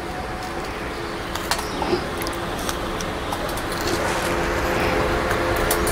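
Steady background rumble and hiss with a faint hum, growing slightly louder about four seconds in, with a few faint light clicks.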